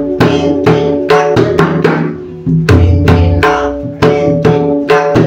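Pakhawaj playing the bhajani theka, with crisp ringing strokes on the right head and deep booming bass strokes on the left head, about three to four strokes a second. There is a brief break a little over two seconds in, then the phrase starts again with a strong bass stroke.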